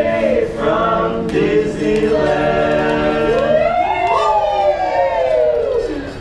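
A barbershop quartet of men singing a cappella in close harmony, holding chords. In the second half one voice sweeps up and then slides back down in a long glide.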